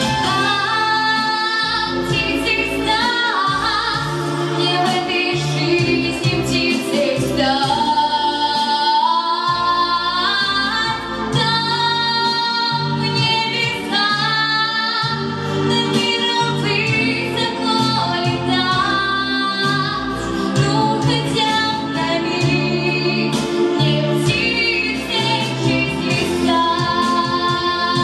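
A young woman singing a pop song into a handheld microphone over instrumental accompaniment, with long held notes.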